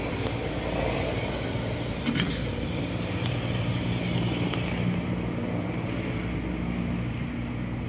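Steady low hum of motor-vehicle engines and road traffic, with a few faint clicks.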